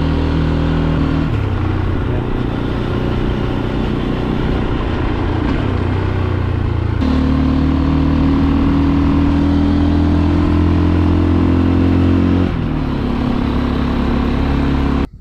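Fantic Caballero 500's single-cylinder engine running as the motorcycle is ridden along the road. The revs shift about a second in, climb and get louder about halfway through, drop back near the end, then the sound cuts off abruptly just before the end.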